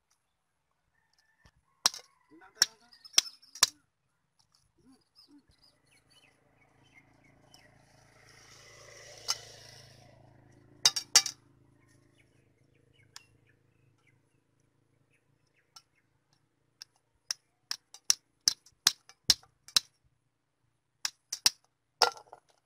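Small catch dropped by hand into an empty metal bucket, each piece landing with a sharp clink on the bucket's bottom. The clinks come one by one, in short groups, with about ten of them close together in the second half, and a soft rustle swells and fades in the middle.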